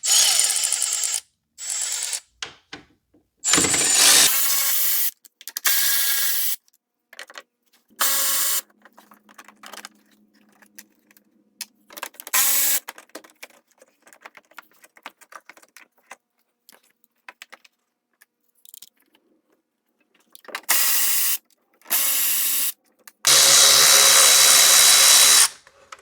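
Cordless power tool running in short bursts as 10 mm bolts are spun out of a housing. There are about nine bursts, and the last, near the end, is the longest at about two seconds.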